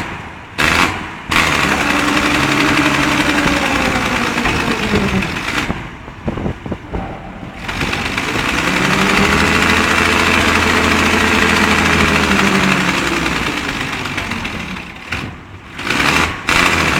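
Ship's horn sounding two long blasts, the second longer, each rising in pitch and then sagging as it dies away, over a constant rushing noise.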